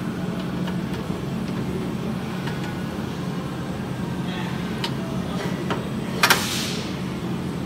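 Cam lock vise on an abrasive chop saw being worked by hand: a few light clicks, then one sharp, loud clack about six seconds in, over a steady hum.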